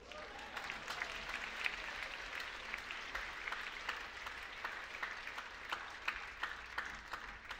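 Audience applauding, a dense patter of clapping that starts abruptly and eases off near the end.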